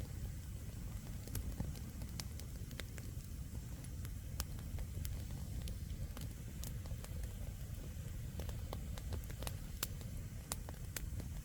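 Wood campfire crackling: irregular sharp pops and snaps of burning firewood, a few a second, over a steady low rumble.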